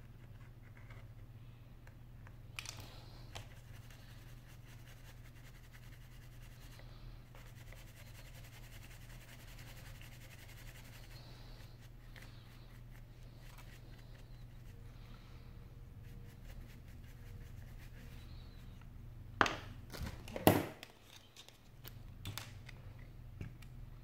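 Light scratching and brushing on the iPhone 5's metal frame as a wooden toothpick and a small brush work over it, over a low steady hum. Two sharp knocks a second apart, about twenty seconds in, are the loudest sounds.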